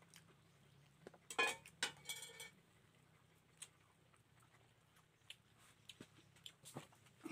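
Dishes and utensils clattering and clinking in a short burst about a second in, some strikes briefly ringing, then a few scattered light clicks and taps.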